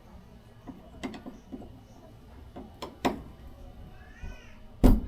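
A few sharp knocks and taps from hands-on installation work, the loudest thump near the end. A short high call that rises and falls comes a little after four seconds in.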